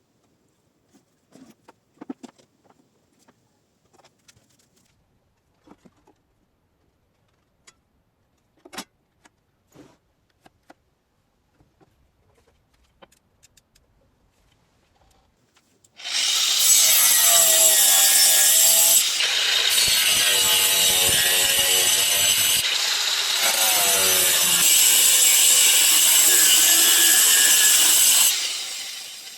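A few scattered knocks and taps, then about halfway through an electric saw starts cutting through wood. It runs loud and continuous for about twelve seconds, with two brief dips, then stops shortly before the end.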